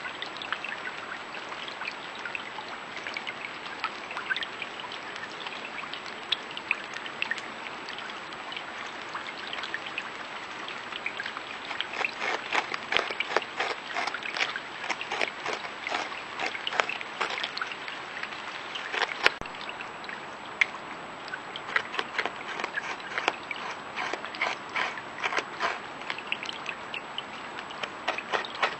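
Beaver gnawing a cottonwood trunk: quick, irregular scrapes and crunches of teeth on wood over a steady background hiss. The bites grow denser and louder after about ten seconds.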